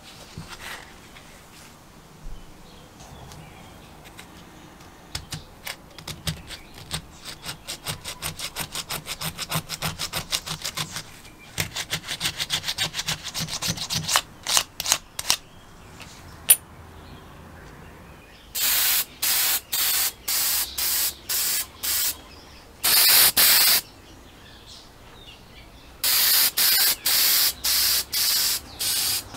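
Rapid rubbing and scrubbing strokes on a small aluminium carburetor body, growing denser into a steady scrub. Then an aerosol spray can hisses out paint in many short, sharp bursts about two a second, with one longer burst between them; these bursts are the loudest sound.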